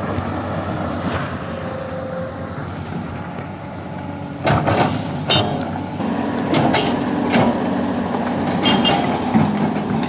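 A large vehicle engine running steadily, with sharp knocks and clanks from about halfway through.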